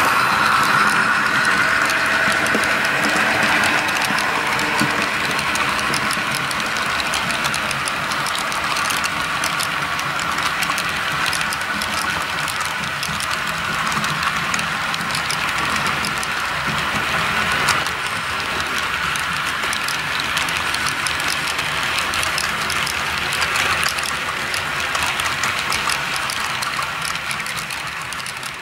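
Model diesel locomotive's ESU sound decoder playing a steady diesel engine sound through a small onboard speaker, with fine steady ticking from the model train's wheels on the track. It grows fainter near the end as the locomotive moves away.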